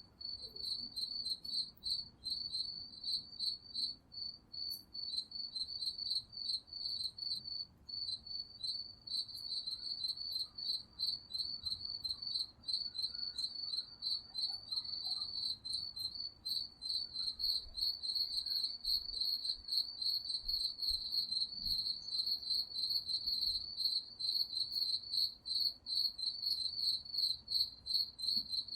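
Crickets chirping at night: a continuous, high-pitched, rhythmic chorus of rapidly repeated chirps.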